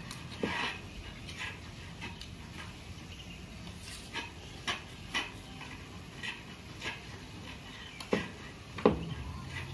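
Irregular light knocks and taps of timber as a wooden cage frame is handled and tapped together, about one a second, with two louder knocks near the end.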